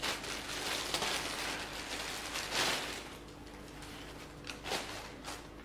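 Packaging and fabric rustling and crinkling as a new swimsuit is handled and unwrapped, busiest for the first three seconds, then just a couple of brief rustles.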